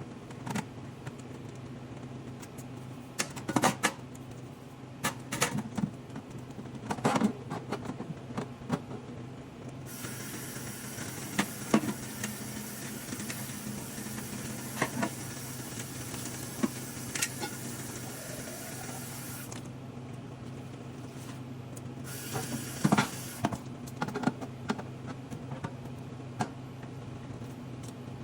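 An espresso machine's drip tray being washed by hand: scattered knocks and clatter as it is handled, with water running from a tap for about ten seconds in the middle and briefly again later. A steady low hum lies beneath.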